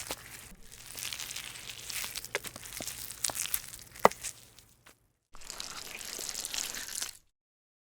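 Sound-effect recordings: a hiss full of irregular sharp clicks and snaps. It breaks off into dead silence briefly about five seconds in, and again near the end.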